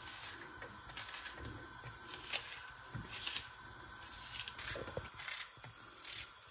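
Small kitchen knife cutting through a raw onion held in the hand, a short crisp cut every half second to second, with the thick chunks dropping into a pot of water.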